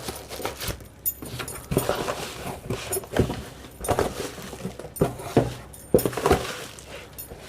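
Items being lifted out of a cardboard box and set down on a surface: irregular knocks, clunks and rustles, about a dozen, with the loudest in the middle of the stretch.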